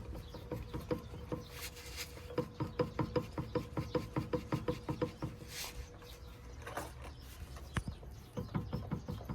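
D-MAX reinforced drive shaft on a Nissan Skyline ER34 clicking rhythmically, about three to four clicks a second with a faint ring to each. The clicking stops for a couple of seconds past the middle and starts again near the end. It is the abnormal noise the owner noticed when pulling away.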